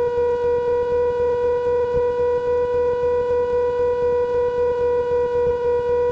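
Steady drone of a Cessna 150 in cruise, its four-cylinder Continental O-200 engine and propeller running at constant power, heard from inside the cabin as a low rumble under a strong, unchanging hum-like tone.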